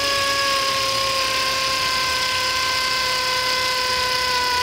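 Pneumatic air ratchet running continuously, driving a cylinder-head bolt down on a GM LS V8: a steady whine over air hiss, sagging slightly in pitch as the bolt draws in.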